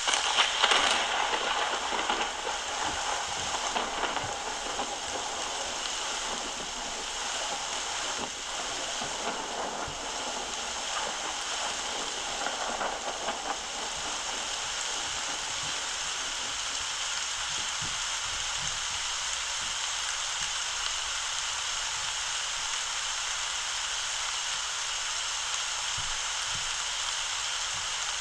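Rain-and-thunder sound effect from the OnSwitch Lightning scene, played loudly from a phone: a steady rain hiss, with a crackling thunderclap in the first few seconds and smaller rumbles around 8 to 13 seconds in.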